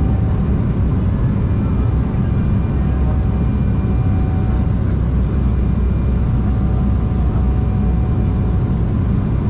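Steady low cabin drone inside an Embraer E190 jet airliner, the noise of its engines and the air around it, even and unchanging.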